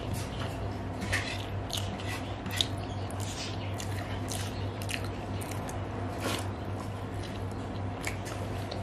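Close-up eating sounds: mouth chewing and smacking with scattered sharp clicks, and fingers squishing rice mixed by hand on a plate, over a steady low hum.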